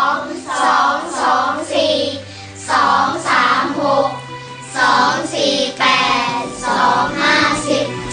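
Children's voices singing together in short phrases, over music with a low held note underneath.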